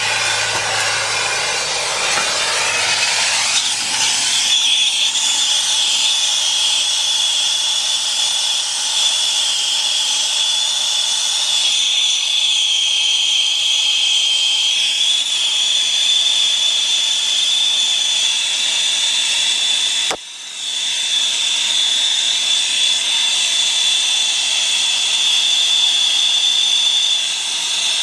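Brazing torch flame hissing steadily against a copper refrigerant-line joint, with a steady high whistle from about four seconds in. The sound dips briefly about twenty seconds in.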